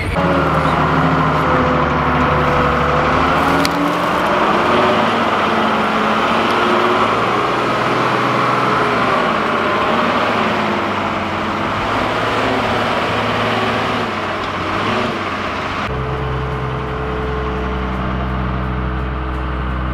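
Dresser wheel loader's diesel engine running as the machine drives along, its pitch rising and falling. Near the end the engine note turns steady.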